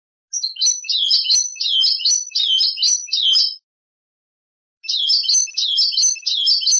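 European goldfinch singing: two phrases of rapid, high twittering notes, the first about three seconds long, the second starting after a pause of about a second.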